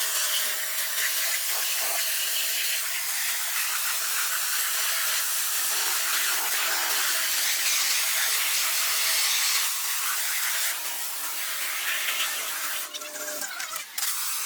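A steady hiss, like a spray or jet of air, that dips and breaks off briefly near the end.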